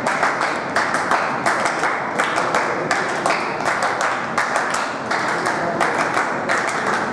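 Hands clapping: a dense, steady patter of applause with sharp single claps standing out throughout.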